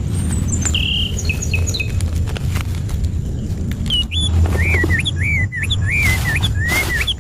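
Birds chirping, then singing a run of repeated rising-and-falling whistled notes from about four seconds in, about two notes a second, over a steady low rumble and scattered crackles.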